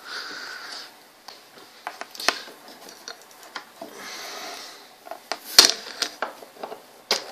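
Handling noises on a workbench: scattered light clicks and knocks with faint rustling, the sharpest knock about five and a half seconds in.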